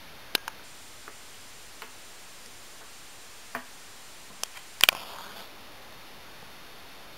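A few light scattered clicks and taps, then about five seconds in a sharp strike and a brief hissing flare of a match being lit.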